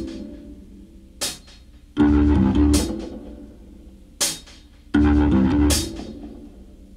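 Blues music with organ and bass playing a stop-start riff: about a second of chords every three seconds or so, separated by quieter gaps and punctuated by sharp cymbal crashes.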